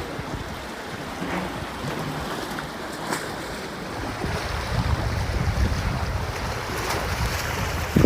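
Sea waves washing against the shore, with wind buffeting the microphone as a rumble that swells toward the end.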